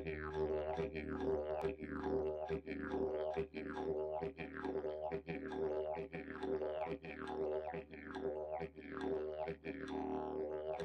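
Didgeridoo music: a steady low drone rich in overtones, its tone sweeping in a repeating rhythm.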